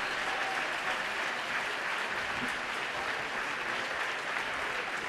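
Theatre audience applauding, a steady, dense clapping.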